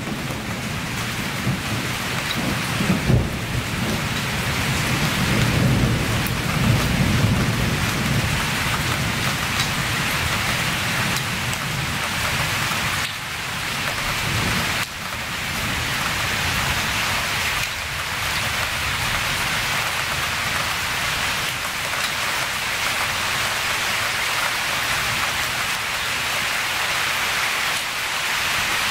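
Steady storm rain falling on forest, with a low rumble of thunder during the first several seconds.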